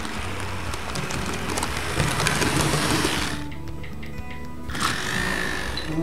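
A model train rolls over a repaired Peco turnout, its wheels and motor running with a steady whirr. The noise cuts off suddenly about three seconds in.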